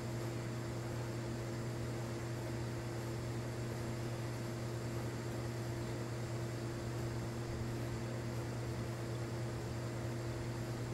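Steady low mechanical hum with a constant hiss, like a motor running without change.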